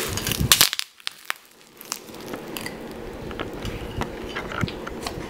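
Bubble wrap twisted in the hands, popping in a quick run of sharp cracks for just under a second. After a short silence come soft chewing and a few light clicks of a spoon against a bowl.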